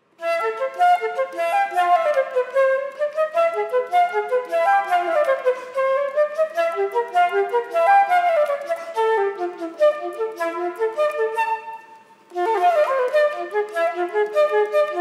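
Concert flute playing a fast melodic line of quick notes that rise and fall in runs. It starts suddenly and breaks off briefly about twelve seconds in before carrying on.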